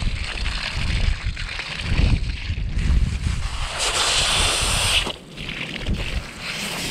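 Pressurised water hissing and spraying out at a duct-taped hose connection to a dock water outlet. It comes on about three seconds in, cuts off, and starts again near the end, over wind buffeting the microphone. The water sprays out because the hose is probably blocked with ice.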